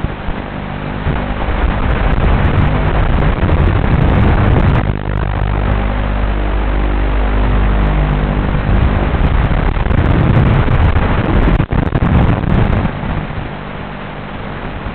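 FPV quadcopter's electric motors and propellers running in flight, their pitch rising and falling with throttle over a steady rush of wind. The sound drops out for an instant nearly twelve seconds in and is quieter near the end.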